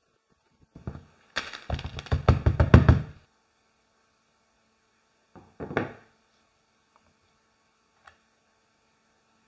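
A quick, irregular run of knocks and thunks lasting about two seconds, then one shorter knock a few seconds later.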